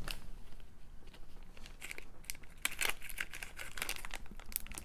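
Small clear plastic zip-top bead bags crinkling and crackling as they are handled and one is pinched open. The crackles are sparse at first and grow denser about halfway through.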